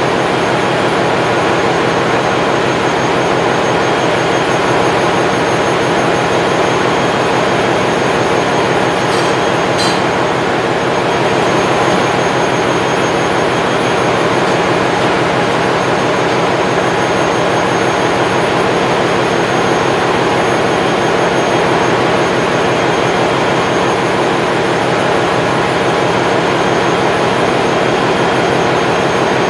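Steady, loud machinery noise of a ship's engine room: a constant dense rumble and hiss with steady hum tones running throughout. A couple of faint high clicks come about nine to ten seconds in.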